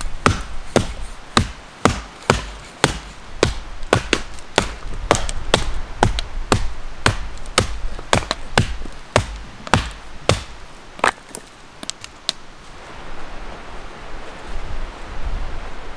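An axe chopping firewood: sharp blade-on-wood strikes at a steady pace of nearly two a second, stopping about twelve and a half seconds in.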